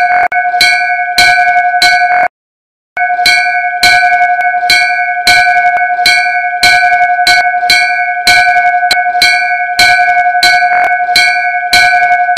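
Large hanging temple bell rung again and again by its clapper, about two strikes a second, each strike ringing on with the same clear set of tones. The ringing breaks off for about half a second a little over two seconds in, then carries on.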